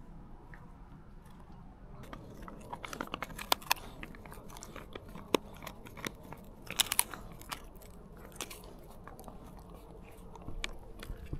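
A dog chewing a dried pig ear, gnawing and crunching it with many irregular sharp crunches that begin about two seconds in.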